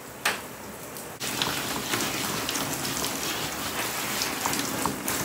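Handheld shower head spraying water onto a dog's wet coat: a steady hiss of falling spray that grows louder about a second in.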